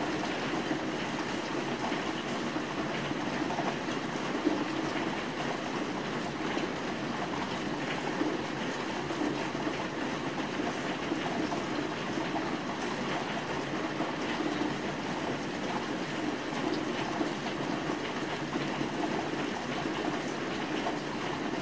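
Steady rain falling on rooftops outside a window: an even hiss with scattered faint drop ticks, and no thunderclap.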